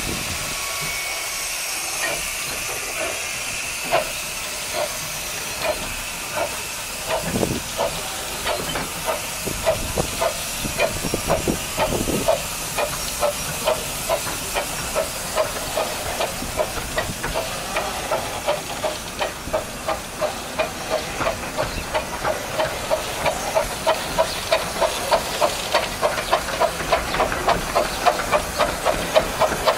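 Romney, Hythe & Dymchurch Railway 15-inch-gauge steam locomotive working, with a steady hiss of steam and exhaust beats. The beats are slow at first and quicken steadily as the train picks up speed.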